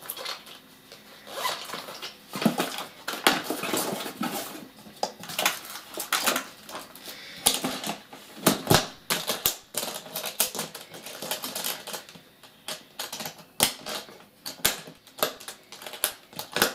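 Irregular clicks and clatters of small plastic makeup jars and the fabric pouch being handled, then the hinged metal trays of an aluminium makeup train case being folded shut and its metal latches worked.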